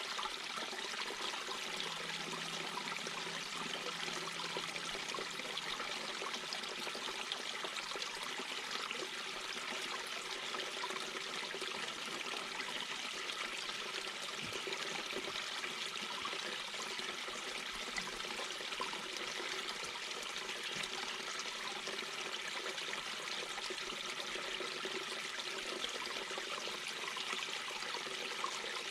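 Mountain brook babbling: a steady, continuous rush and trickle of water running over rocks.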